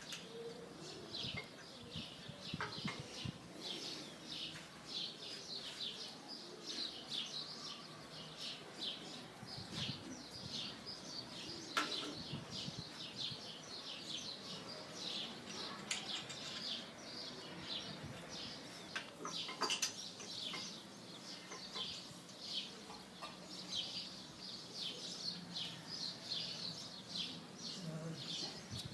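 Small birds chirping continually, many short high calls one after another, with a few sharp clicks in the middle.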